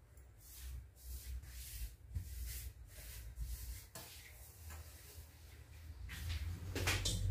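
Hands gathering and pressing a lump of puff pastry dough (détrempe) on a stone countertop: a series of faint, soft rubbing and patting strokes, scraping up the bits stuck to the counter.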